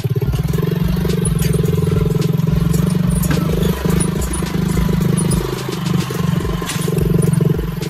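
An engine running steadily with a fast, even pulsing drone, with scattered light clicks and clatter over it.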